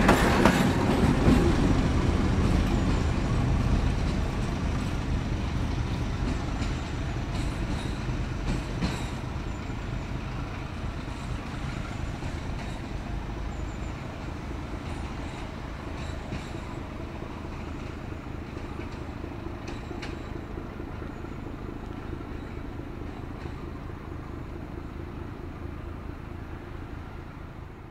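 Diesel-hauled special train, a Bardotka T478.1001 leading and ČSD T466.0007 at the rear, running away down the line: the rumble of the engines and wheels fades steadily over the first half, then hangs on as a faint low hum with a few light clicks.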